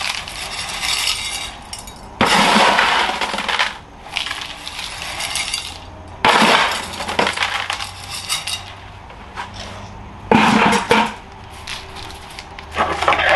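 Gritty bonsai soil poured from a plastic bucket into a plastic pot, rattling and hissing in about four separate pours of a second or so each, with quieter shifting and scraping of the grit between them.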